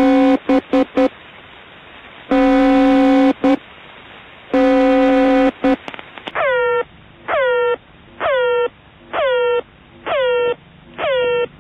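Shortwave number station signals. First the Fazan-37 (S5292) Russian number station: a steady pitched tone in blasts about a second long, each followed by short beeps. About six seconds in, the Monolith Network military station "The Air Horn" takes over: six horn-like blasts about a second apart, each dropping in pitch as it starts and then holding.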